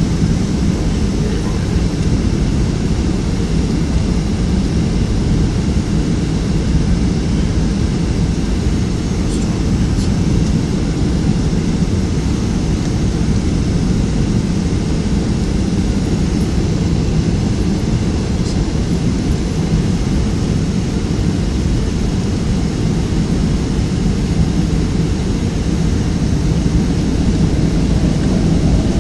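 Steady roar of jet engines and rushing air heard inside the cabin of a Boeing 757-200, with a few faint ticks. It grows slightly louder near the end.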